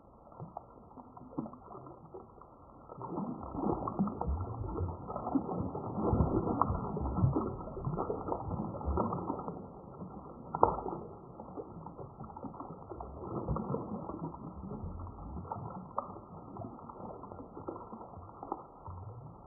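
A hooked fish thrashing at the surface beside a landing net, giving irregular splashes and slaps of water. The splashing is busiest in the first half, with one sharp loud slap about halfway through, and eases off afterwards.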